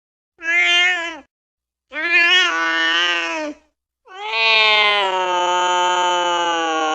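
Angry domestic cat yowling in three calls: a short one, a longer one, then a long drawn-out yowl held at a steady pitch.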